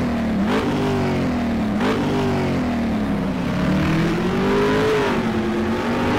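Car engine revving: a few quick blips of the throttle with the pitch rising and falling, then a slower climb that peaks about five seconds in and eases off.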